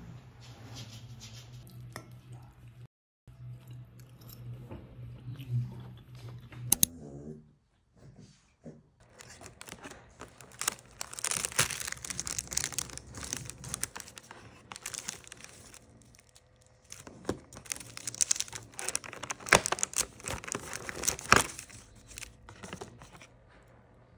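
Cardboard doors of a paper advent calendar being torn open and pulled back: a run of short rips and crinkling paper noises. At first, faint dialogue from a TV show.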